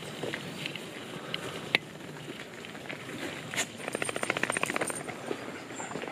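Outdoor background noise with scattered sharp clicks, and a brief fast, even rattle about four seconds in.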